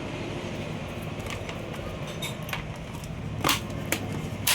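A steady low hum with about six sharp clicks and taps scattered through, the loudest two about three and a half and four and a half seconds in.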